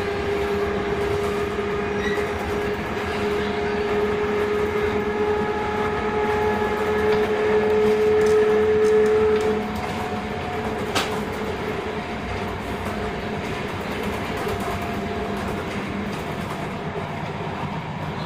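Sotetsu 8000 series electric train's running sound heard from on board. A motor whine rises slightly in pitch over a steady rumble of wheels on track. About halfway through the whine stops and the sound drops in level, leaving the wheel and track rumble, and a single sharp click comes a second or so later.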